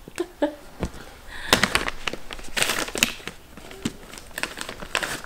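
Soft plastic package crinkling and crackling as it is handled and squeezed, in two short spells, with scattered small clicks and taps.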